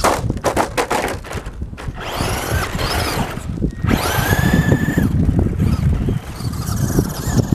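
Radio-controlled truck running on dirt: its motor whine rises and falls as it is throttled, twice climbing to a high held pitch, with gravel clattering under the tyres in the first second or so.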